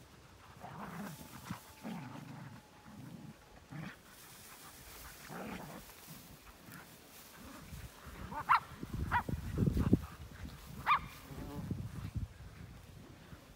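Dogs at play barking: three short sharp barks in the second half, after softer low dog noises, with a low rumbling noise under the barks.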